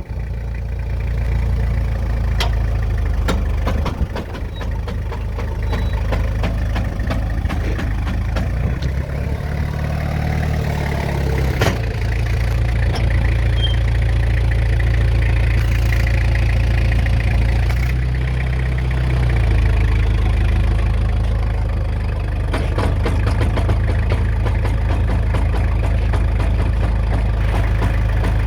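Toyota Hilux LN107's diesel engine idling under a steady hum, with repeated sharp clunks from the front CV joints on new extended half shafts as the truck turns on full lock in four-wheel drive. The clunks come more often towards the end. They are the sign of the CV joints binding at full steering angle with the front axle driven.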